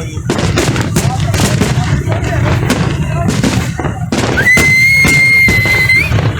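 Fireworks bursting and crackling in quick succession, with crowd voices underneath. From about four seconds in, a steady high whistle is held for about two seconds.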